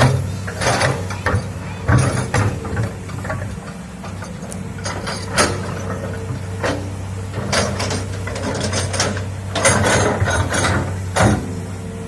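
Hitachi excavator's diesel engine running steadily, with irregular metallic clanks, knocks and creaks from the working machine, the loudest of them about two seconds in and again around ten and eleven seconds.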